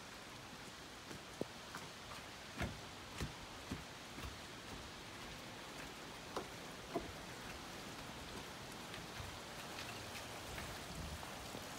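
Steady rain falling, an even hiss with scattered sharp ticks of single drops striking close by.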